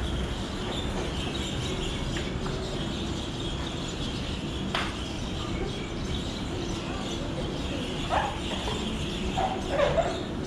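Steady room noise of a grappling gym during sparring, with a single sharp click near the middle and a few short squeaks near the end.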